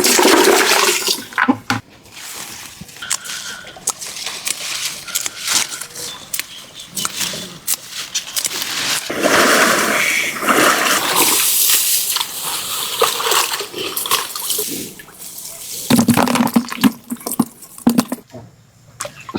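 Water pouring and splashing, with many scattered knocks and clicks; the water is loudest around the middle.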